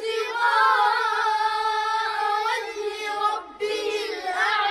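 A child's high voice chanting a Quran verse in melodic recitation, drawing the vowels out in long held notes, with a short breath about three and a half seconds in before the chanting resumes.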